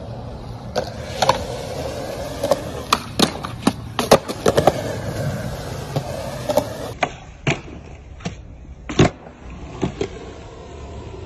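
Skateboard wheels rolling over a concrete skatepark surface with a steady roll, broken by many sharp clacks and knocks from the board, the loudest about four seconds in and again about nine seconds in.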